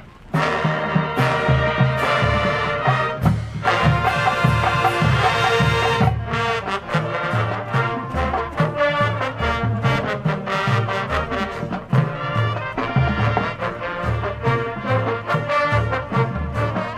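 High school band playing a loud brass-led passage that comes in suddenly just after the start, with heavy low notes underneath.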